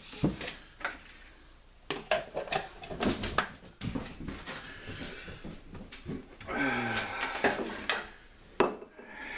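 Kitchen-counter clatter: a metal cake pan and containers being set down and shifted on the counter, with scattered knocks and rustling.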